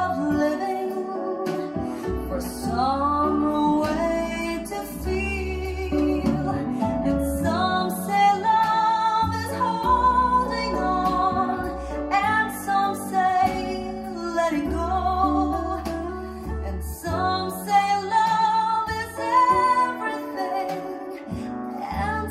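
A woman singing a slow ballad over acoustic guitar, played back through Xavian XN125 MK2 bookshelf speakers and picked up by a microphone in the listening room.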